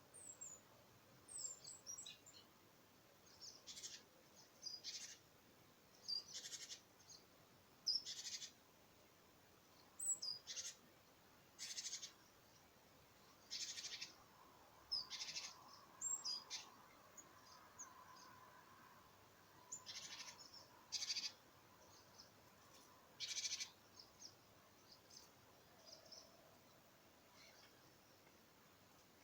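Small garden birds calling: short high calls repeated every second or two, with thin quick chirps in between.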